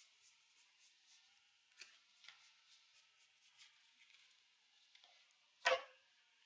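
Trading cards being handled and sorted: soft clicks and faint ticking, with one louder rustling snap of card stock near the end.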